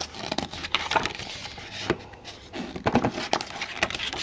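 Pages of a CD album's glossy photo book being handled and turned by hand: a run of paper rustles with many small clicks and taps, busiest about three seconds in.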